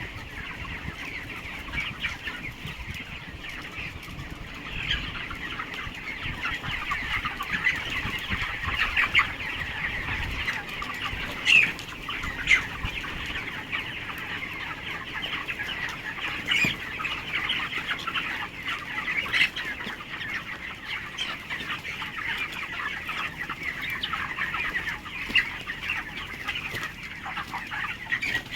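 A large flock of 27-day-old chickens calling all at once, a dense, continuous chatter of peeps and clucks with a few louder single calls standing out.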